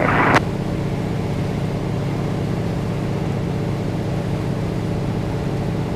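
T-6 Texan's Pratt & Whitney R-1340 nine-cylinder radial engine droning steadily in cruise, heard from the cockpit. A radio call cuts off about half a second in.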